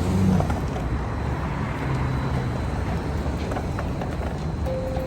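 City street traffic: a steady rumble of passing cars and engines, with a brief steady tone near the end.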